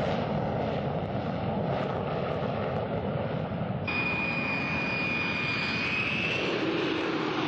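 Boeing X-32A jet engine running. For the first four seconds it is a steady rumble heard from inside the cockpit; then, heard from outside as the aircraft flies its approach, a steady high turbine whine sits over the engine noise and rises slightly about six seconds in.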